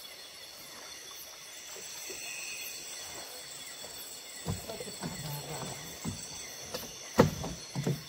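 Steady high-pitched chirring of night insects over the river, with a few hollow knocks and bumps on the boat in the second half, the loudest about seven seconds in.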